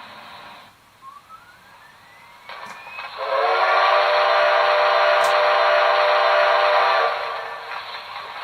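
Steam-whistle sound from the Quantum Sound system of a Tenshodo 1/80 D51 model locomotive: one long blast of about four seconds beginning about three seconds in, over a steady hiss, with a faint rising tone just before it.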